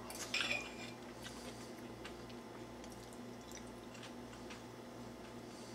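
Dressing being drizzled over a plate of food: a brief soft squish about half a second in, then a few faint light clicks over a low steady hum.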